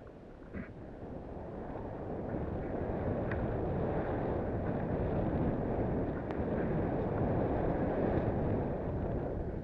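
Wind rushing over the microphone of a body-mounted action camera during a fast descent through powder snow, building up over the first few seconds as speed rises and easing a little near the end, mixed with the rush of snow under the rider.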